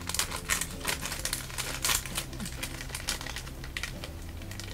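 Plastic wrapper of an individually packed custard cake crinkling as it is opened. The crackles come thick and fast for the first couple of seconds, then thin out.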